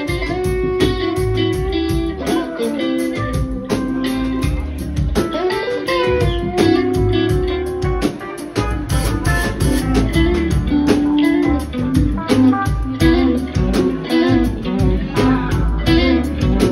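Live rock band playing an instrumental jam: electric guitars playing melodic lines over bass and drums.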